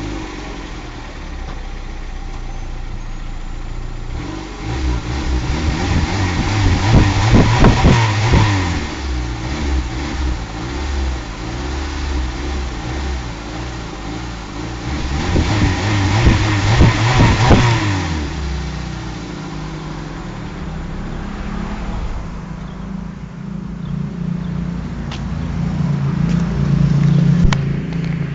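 Peugeot 206's 1.6 8-valve 90 hp four-cylinder petrol engine on its stock exhaust, idling and then revved in two bouts, about five and fifteen seconds in, each time rising in pitch and dropping back to idle.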